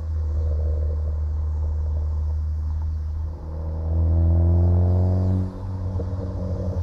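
Ford Focus ST's turbocharged 2.0-litre four-cylinder, running a crackle tune through a catless downpipe and Cobb cat-back exhaust. Its exhaust crackles and burbles on the overrun after a rev. About three and a half seconds in it revs up again, then pops and crackles once more as the throttle is let off.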